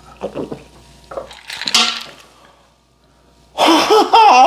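Light clinking of cutlery and dishes, then about three and a half seconds in a man lets out a loud, long, wavering wordless exclamation after a gulp of a strong drink.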